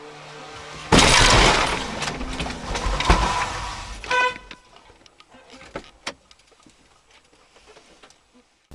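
Car horns: a loud, harsh horn blast starting about a second in and lasting some three seconds, then a short, clear toot just after four seconds.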